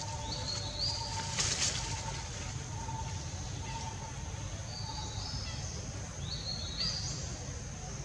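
Forest ambience: birds calling in short rising notes, repeated in pairs several times, over a steady high hum and a low background rumble. A brief rustle about a second and a half in.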